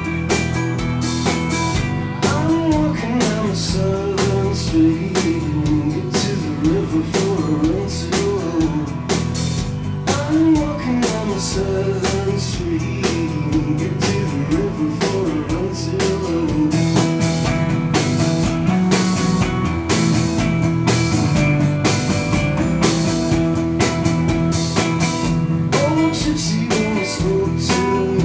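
Live band playing: acoustic guitar strummed over a drum kit, with a man singing lead vocals.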